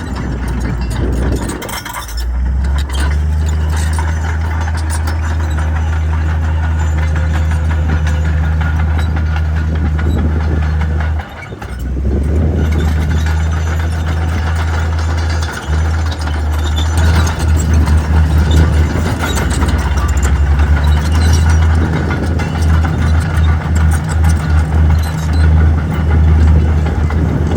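Heavy diesel engine of earthmoving equipment running, a deep steady hum. It drops out briefly about 11 seconds in and again near 15 seconds, then runs on more unevenly, rising and falling, through the second half.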